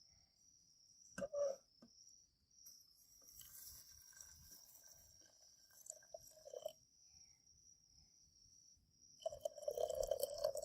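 Insects chirring steadily in one high continuous tone, with scattered knocks and handling noises. A louder clattering rustle comes near the end.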